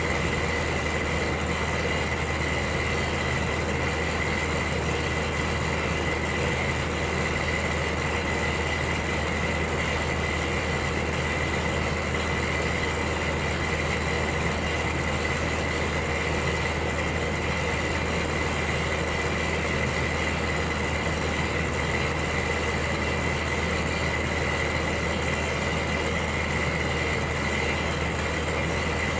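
Electric heater running with a steady hum: an even, unchanging rush of noise with a low hum underneath and a thin, steady high whine.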